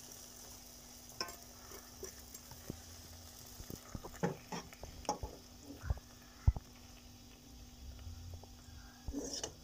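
Scattered light clinks and taps of a metal slotted spoon against a steel pan as fried jalebis are set into sugar syrup. The sharpest knock comes about six and a half seconds in, over a faint steady hum.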